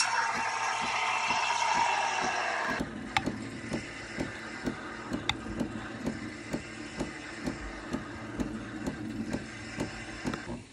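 Steam wand of a Nespresso Creatista Pro hissing as it froths milk in a stainless steel jug, its pitch slowly falling, until it stops about three seconds in. Then a metal spoon stirs chocolate syrup into espresso in a glass, clinking against the glass about two or three times a second.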